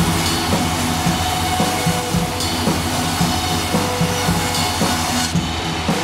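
Background music with a steady beat and a stepping bass line.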